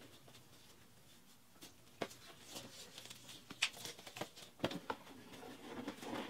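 Faint scattered taps and rustles of a pebbled white cardboard gift box and its ribbon being handled. It starts near silent, and the soft clicks and rustles begin about two seconds in.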